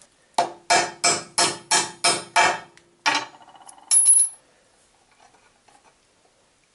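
Hammer striking a pin punch set on a roller chain on a steel workbench, driving out a link pin to shorten the chain: about eight sharp, ringing blows, about three a second, that stop after about three seconds. A short, high metallic clink follows about four seconds in, then faint handling of the chain.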